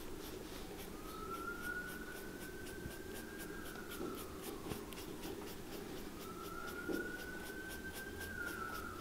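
A dauber brush scrapes in short strokes as it applies edge dressing along the sole edge of a leather boot. A siren wails up and down twice.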